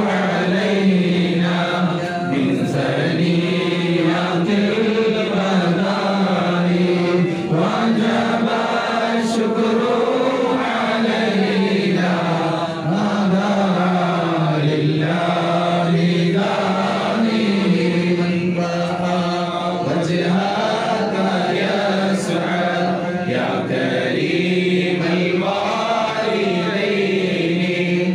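A group of men chanting an Islamic devotional hymn in unison, one slow melodic line rising and falling, sung into microphones without instruments.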